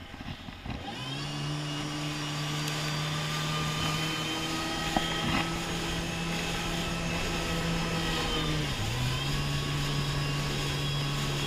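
Jet ski engine running at a steady cruising speed. Its pitch climbs in the first second, dips briefly about nine seconds in as the throttle eases, then comes straight back up.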